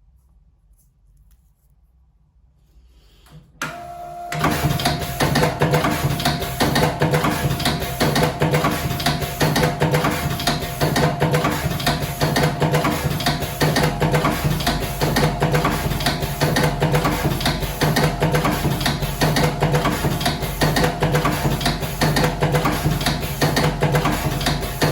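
Slim-cigarette rolling machine switched on with a click about three and a half seconds in, then running steadily: a fast, even clatter over a constant hum.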